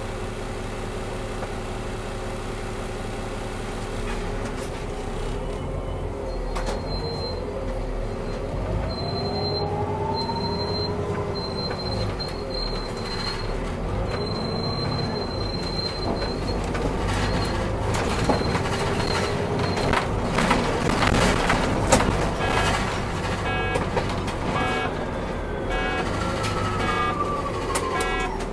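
Solaris Urbino 8.9LE city bus under way, its engine and drivetrain running with the pitch rising and falling as it pulls away and changes speed. Past the middle a tram passes on the neighbouring track with clattering and rattling, and a regular ticking comes in near the end.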